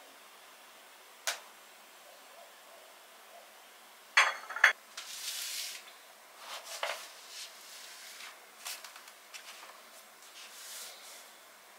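Dishes and cutlery being handled: a single tap, then two sharp ringing clinks about four seconds in, followed by softer scraping and rustling.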